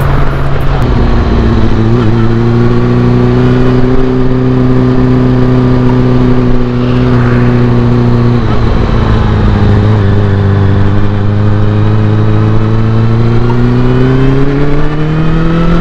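Honda CB400 Super Four's inline-four engine through a Yoshimura slip-on exhaust, heard while riding. The engine note steps down twice, about a second in and again about eight and a half seconds in, as with gear changes. It then climbs steadily as the revs rise near the end.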